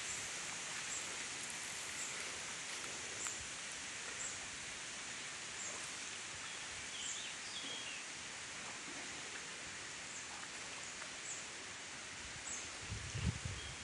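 Steady riverside ambience: an even hiss with a few faint, short high chirps, likely birds, scattered through it. A brief low rumble comes near the end.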